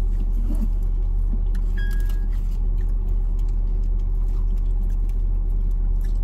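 Steady low rumble of a car's interior with the engine running, with a few faint clicks and one short high beep about two seconds in.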